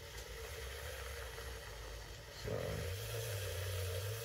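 Handheld battery milk frother whirring steadily in a glass of coffee, whipping butter, ghee and oil into it; its hum steps up louder about two and a half seconds in.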